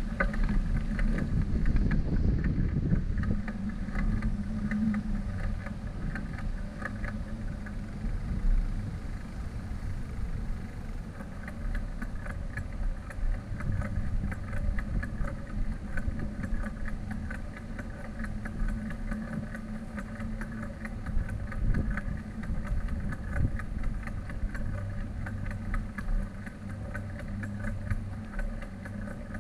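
Bicycle rolling over concrete walkways and cracked asphalt: a steady rumble with continual small rattles and clicks.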